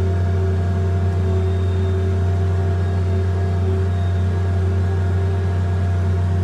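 Tractor engine running steadily, a constant low drone with a strong hum and a few steady higher tones, unchanging throughout.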